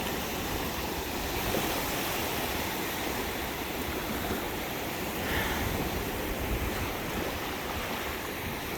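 Gulf of Mexico surf washing onto the beach, a steady wash of small waves.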